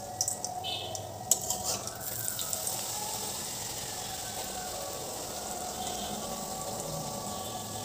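Hot oil sizzling around a flatbread frying in a wok, a steady hiss from about two seconds in, after a few sharp clicks at the start.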